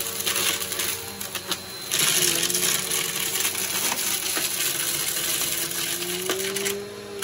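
Upright bagless vacuum cleaner running over heavily littered carpet, with debris clicking and rattling as it is sucked up into the canister. The suction noise grows louder about two seconds in and drops just before the end.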